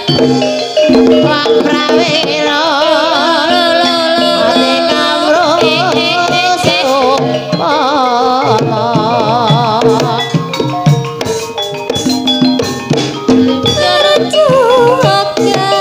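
Live ebeg (Javanese hobby-horse dance) music: hand drums play quick patterns under a wavering melody line with heavy vibrato and steady held low tones.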